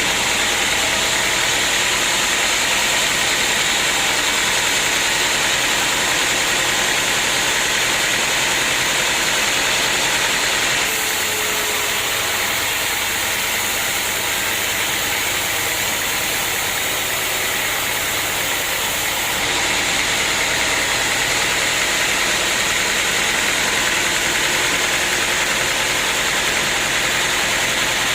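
Sawmill machinery running steadily, an engine-like drone under a loud hiss, with the sound shifting slightly about eleven seconds in and again near twenty seconds.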